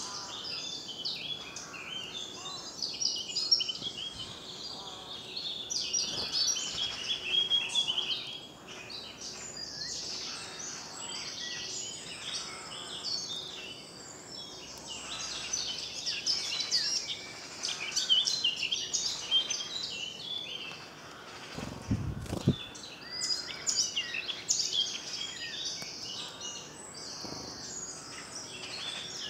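Many woodland songbirds singing at once in a dense spring chorus of overlapping chirps, warbles and trills. A brief low thump comes about three-quarters of the way through.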